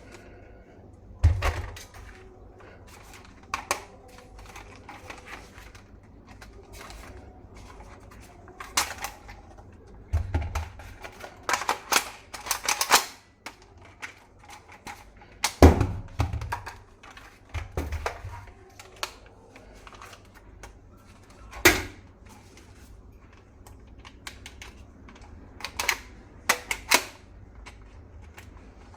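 Plastic parts of a toy rifle being handled: irregular clicks and clacks with several heavier thunks.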